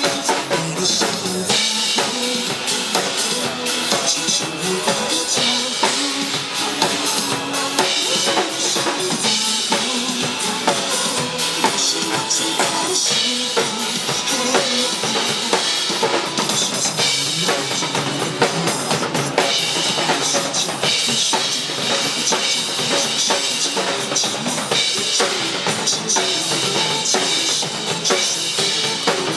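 Instrumental passage of a pop song played by a band, with the drum kit to the fore: bass drum, snare and cymbals over a steady beat.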